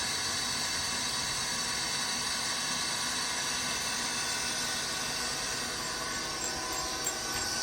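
Tsugami BE-12V CNC Swiss-type screw machine running a cycle: a steady hiss with several steady high whining tones from the spindles and axis drives.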